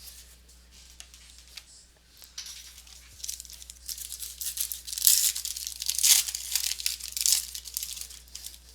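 Wrapper of a trading-card pack being torn open and crinkled, a rustling, crackling tear that builds from about two seconds in and is loudest in the middle.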